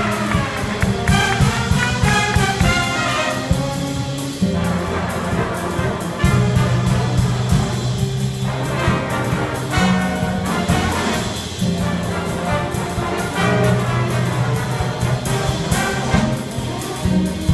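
High-school freshman jazz band playing a big-band chart, trumpets and trombones over held low notes that change every second or two.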